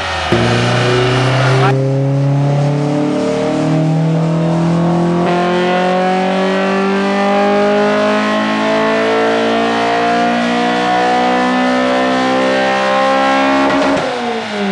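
Nissan SR20VE 2.0-litre four-cylinder engine making a wide-open-throttle pull on a chassis dynamometer. The note climbs steadily in pitch for about fourteen seconds, then falls sharply as the throttle is lifted near the end.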